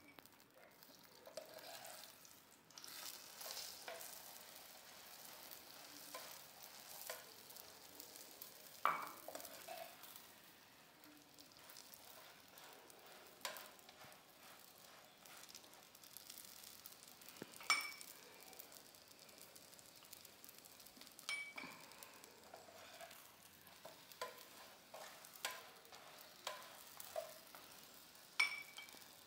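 Chapati frying in oil in a pan, a faint steady sizzle, with a metal spoon spreading oil over it and a few sharp clinks of the spoon against the pan or glass.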